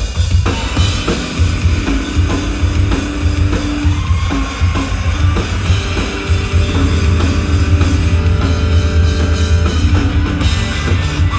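Live rock band playing: drum kit, bass and electric guitar, with a heavy low end.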